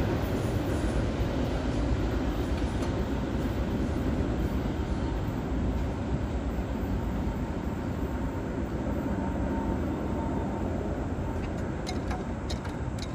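Double-stack intermodal freight train rolling away at speed: a steady rumble of steel wheels on the rails that slowly fades as the train recedes. Sharp ticks, about two a second, start near the end.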